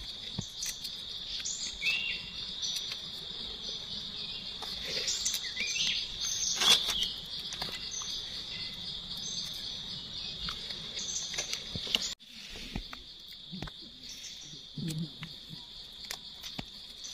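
Steady, high-pitched drone of insects in the forest. Over it come dry leaf litter rustling and small clicks and snaps as mushrooms are cut and pulled from the forest floor with a knife, with a louder crunch about seven seconds in.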